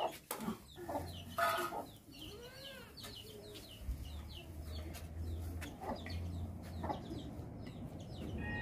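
Chickens clucking, with many quick high chirps. A few sharp clicks of a steel ladle on a metal pan come in the first second or so.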